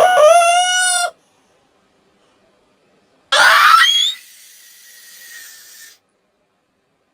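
A cartoon character's voiced sneeze: a drawn-out rising "ah" for about a second, then after a two-second pause a sudden loud "choo" that sweeps up in pitch, trailing off into a quieter tail for about two seconds.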